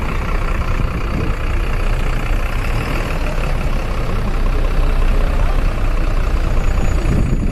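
Steady engine and street-traffic noise of a moving double-decker tour bus, heard from its open top deck.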